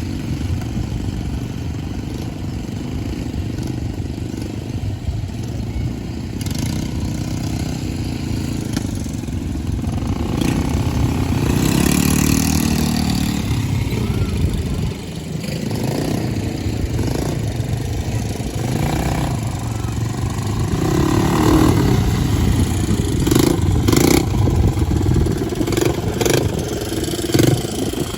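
ATV engine running while being ridden, a steady low rumble that grows a little louder about a third of the way in, with a few sharp knocks near the end.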